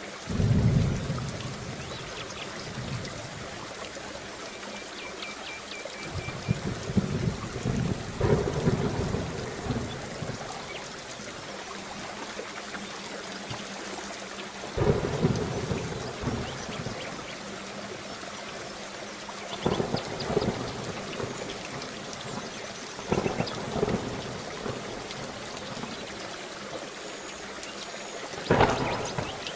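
Steady heavy rain with repeated rolls of thunder, about six deep rumbles that swell up and fade, the loudest just after the start and near the end.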